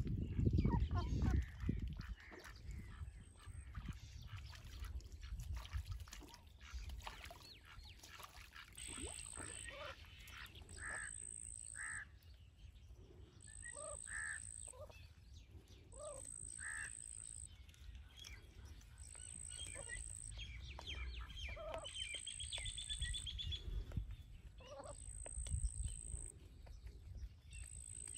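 Domestic ducks quacking now and then in short separate calls.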